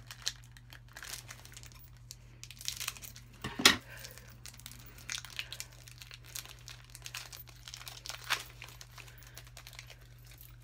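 Foil Pokémon trading card booster pack wrapper crinkling and tearing as it is opened by hand, in scattered crackles, with one much louder sharp crackle about three and a half seconds in.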